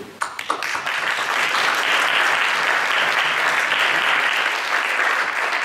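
Audience applauding: a few scattered claps that build within about a second into steady applause from a room full of people.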